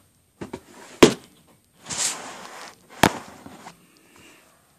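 Two sharp knocks about two seconds apart, with rustling and small clicks between them, like something being bumped and handled close to the microphone.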